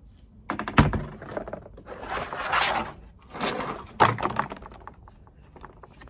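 Large moulded plastic panels of a garden storage box being handled: hollow plastic knocks and clatters, with a sharp knock about a second in and another about four seconds in, and two longer scraping noises between them. It dies down to small clicks near the end.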